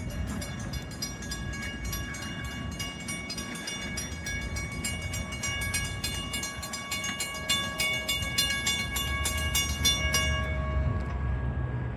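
Railroad grade-crossing mechanical bells (WCH) ringing with rapid, even strikes and a sustained ring; they stop about ten and a half seconds in. A low rumble builds underneath in the second half.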